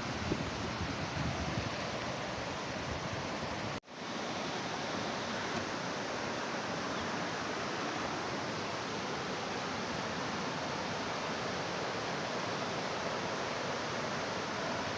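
River water rushing steadily, with a brief cut-out about four seconds in.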